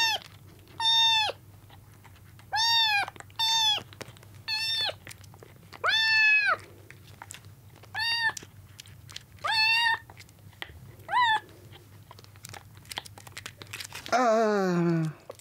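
Young kitten meowing repeatedly in high-pitched, arching cries, about nine in the first eleven seconds, while being bottle-fed with milk. Faint soft clicks follow, then a longer, lower cry falling in pitch near the end.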